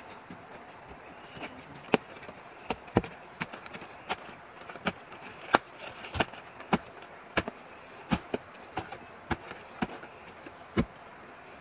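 Shovel chopping and stabbing into earth and roots while digging a hole: a run of sharp strikes, about two a second, starting about two seconds in.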